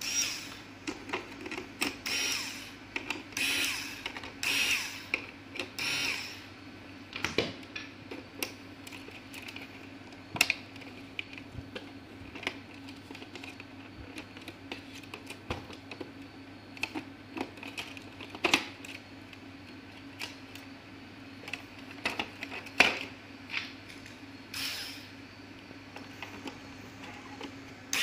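Scattered sharp clicks and handling noise as fingers unplug wire and ribbon-cable connectors from a projector's main circuit board, with short rustling bursts in the first few seconds, over a faint steady hum.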